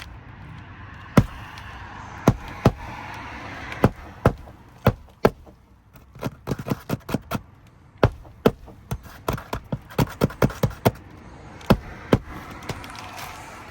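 Hammer striking roofing nails into asphalt shingles: scattered single blows, then two quick runs of rapid strikes around the middle.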